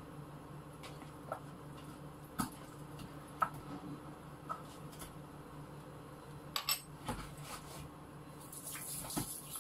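Dishes and utensils clinking now and then as they are washed by hand in a kitchen sink, over a steady low hum, with a hiss rising near the end.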